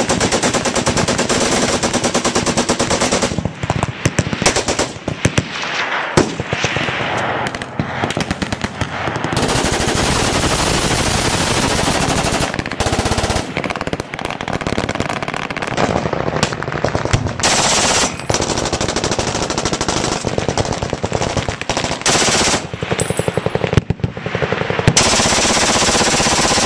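Several machine guns firing full-auto at once, long overlapping bursts that run almost without a break, easing off briefly a few times before picking up again.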